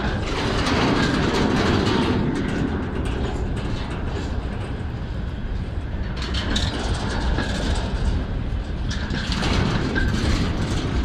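Freight train wagons rolling past close by: steel wheels rumbling and clacking over the rail joints, louder about a second in and again near the end.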